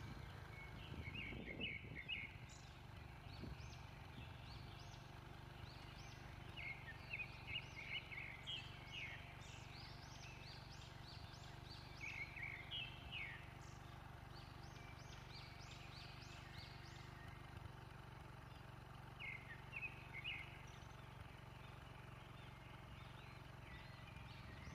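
Birds calling in scattered bursts of quick, high chirping notes over a faint, steady low hum.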